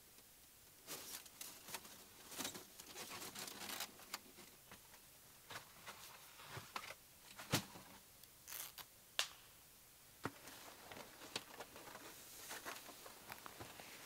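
Faint rustling and scraping with scattered sharp clicks: a rolled titanium-sheet stovepipe being handled and fitted through a tent's stove jack. One click about seven and a half seconds in stands out as the loudest.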